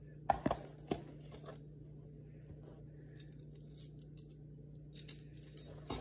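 Metal measuring spoons on a ring clinking and jangling as cocoa powder is scooped into a mixing bowl. A few sharp clinks come in the first second and a half, and another cluster about five seconds in.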